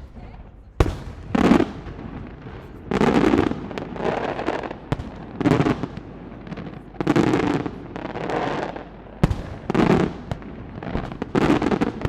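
Aerial fireworks shells bursting in quick succession, roughly one burst every second, mixing sharp single bangs with longer crackling bursts.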